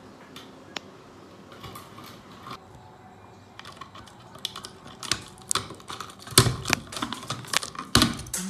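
Plastic clicking and rattling from the parts of an old ceiling fluorescent light fixture being handled, as fingers work its white plastic tube connector loose. Scattered clicks at first, growing busier about halfway through, with a couple of louder knocks near the end.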